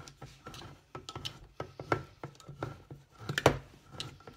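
Pampered Chef Smooth Edge can opener being cranked around the rim of a metal can, giving a string of irregular clicks and knocks, the loudest about three and a half seconds in.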